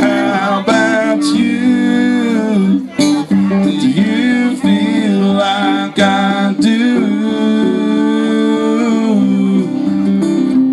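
Electric guitar and acoustic guitar playing together live in a country song.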